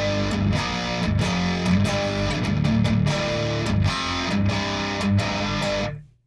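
Distorted electric guitar riff played through a Black Mass preamp pedal and an Orange PedalBaby 100 power amp, with one of the pedal's internal trim pots set at about a quarter turn. The playing is heavy on low notes and stops abruptly near the end.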